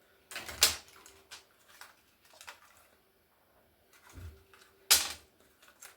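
Small hard parts from a dismantled laptop being handled on a work surface: scattered clicks and light knocks, with a low thud about four seconds in and a louder sharp click just after.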